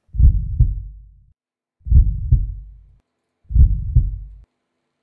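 Heartbeat sound effect: slow, low lub-dub double thumps repeating three times, each pair about one and a half seconds after the last.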